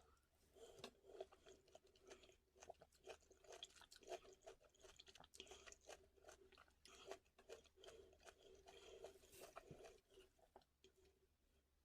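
Faint, close-up chewing of crunchy food, with a rapid irregular run of wet crunches and clicks that thins out near the end.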